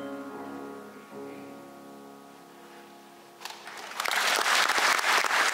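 Orchestra's final held chord fading away, then audience applause breaking out about three and a half seconds in and quickly growing loud.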